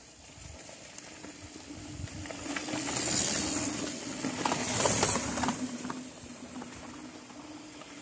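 Mountain bike tyres rolling over loose, dusty dirt as the bike approaches, a rising hiss with two louder rushes about three and five seconds in, over a faint steady hum.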